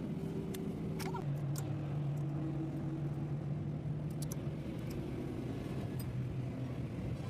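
An engine running steadily, its low hum stepping down slightly in pitch about a second in, with a few sharp metallic clicks from a box spanner and long bar being worked on a truck's wheel-hub nut.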